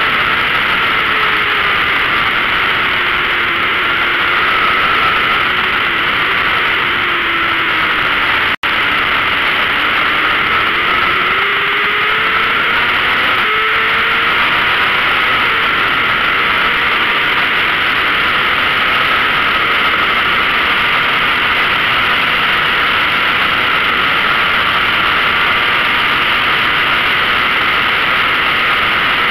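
Onboard sound of a 600 cc racing motorcycle at speed: a loud, steady rush of wind over the camera microphone with the engine's note underneath, its pitch rising and falling with the throttle. The sound cuts out for an instant about nine seconds in.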